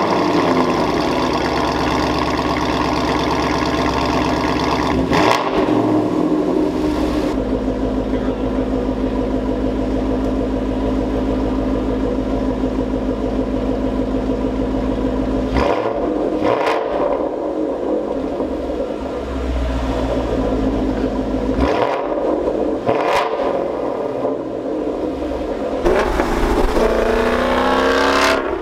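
Ford Mustang GT's 5.0 L V8 running through a Corsa Extreme cat-back exhaust, idling and revved a few times. Near the end it accelerates, rising in pitch.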